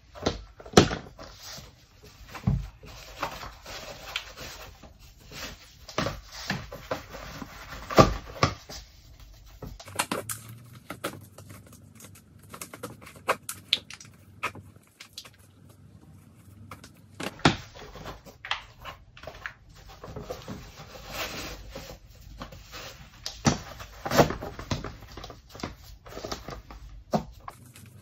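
Nike Alphafly 2 running shoes being put on and laced: irregular knocks and taps, with rustling of laces and shoe upper between them.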